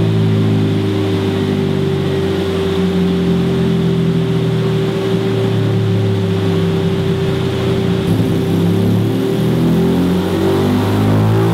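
Honda CB125F's single-cylinder engine revved on a stationary bike: held high at first, easing down to a lower, steadier speed around the middle, then dipping and rising again in small blips.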